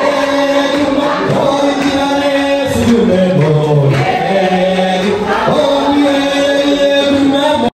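Music with a choir singing long held notes in several voices. It cuts off abruptly just before the end.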